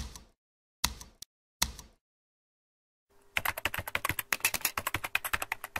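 Three separate sharp clicks in the first two seconds, then fast continuous typing on a computer keyboard from about three seconds in.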